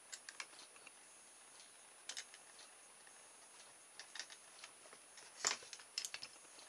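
Scattered small clicks and light knocks of hands working a hot glue gun on a mousetrap frame of wooden skewers and plastic cable ties, with the sharpest knocks about five and a half and six seconds in as the glue gun is lifted away and set down.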